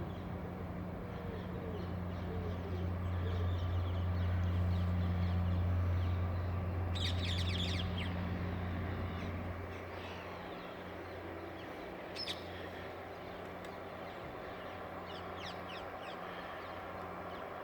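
Small push boat's engine running with a steady low hum, growing louder, then dropping back after about ten seconds as the boat passes. Birds call over it a few times.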